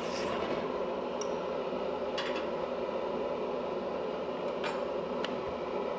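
Steel tweezers and a freshly quenched strip of copper clicking and tapping a few times as they are handled, over a steady hum.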